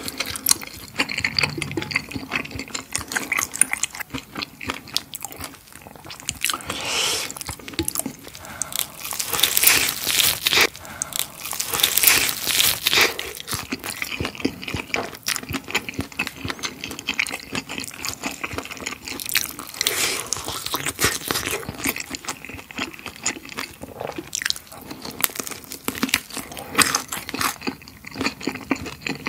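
Close-miked eating sounds: chewing and crunching bites into crispy flake-coated fried chicken.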